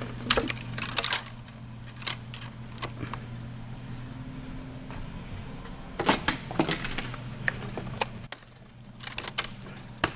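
Handling noises: scattered clicks, knocks and rustling as plastic packaging, a plastic bag and zip ties are pulled off and cleared away. The clicks come in a cluster at the start and again from about the middle on, over a steady low hum.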